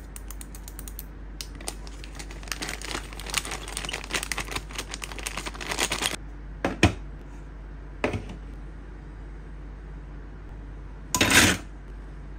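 A plastic pen packet crinkling in the hands, with rapid crackles and clicks for the first half. Then come two sharp knocks and, near the end, a short, louder rustle.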